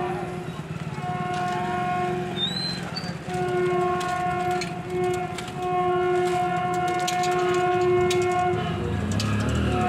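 Electric locomotive horn of an approaching goods train, sounded in several blasts. The last blast is long, held for about five seconds, over a low rumble from the train.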